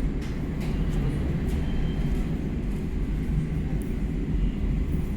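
Steady low rumble of background noise, like traffic, with a few faint clicks over it.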